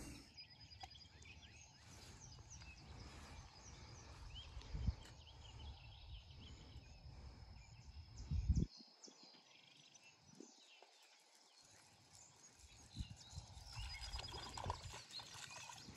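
Faint outdoor background with a low rumble that stops a little past halfway, and a couple of soft knocks, one about five seconds in and one about eight seconds in.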